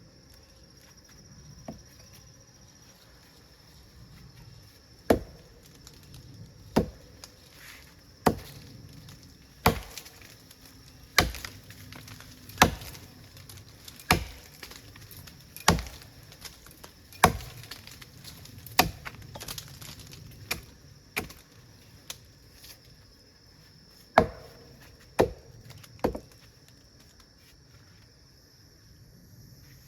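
Blade chopping into wood, a steady series of sharp blows about one and a half seconds apart, then three more after a short pause; the tree trunk is being cut open to reach a wild bee hollow.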